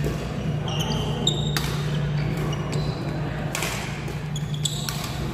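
Badminton rackets striking a shuttlecock during a rally: a few sharp hits about two seconds apart, with short shoe squeaks on the court floor between them. A steady low hum runs underneath.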